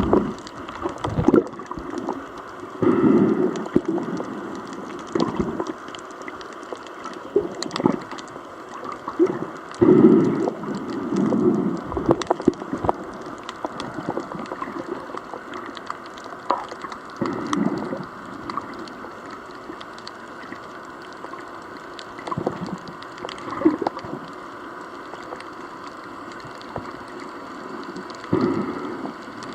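Seawater washing and splashing at the shore in irregular surges, with a steady hiss between them.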